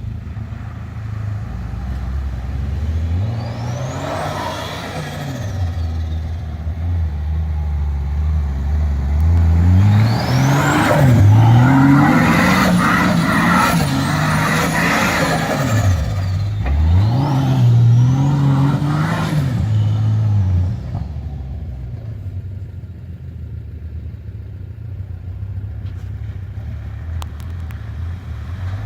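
Turbocharged Nissan TB42 4.2-litre petrol straight-six revving hard in repeated bursts, its pitch rising and falling, with a high whistle climbing and falling with the revs. About 21 seconds in it drops back to a quieter, steadier run.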